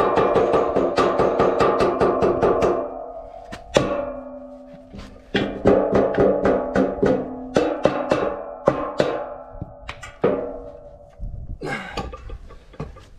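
Background music with a steady beat, and a single sharp knock a little under four seconds in.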